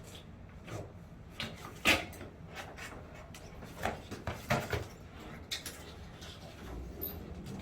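Irregular knocks and clatter from work on a large old air conditioner being taken apart for removal. The loudest knock comes about two seconds in, with a cluster of smaller ones around four to five seconds.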